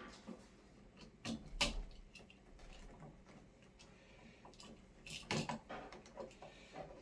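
A few light clicks and knocks from a wall light switch and its wires being handled: two about a second and a half in, and a short cluster near the end.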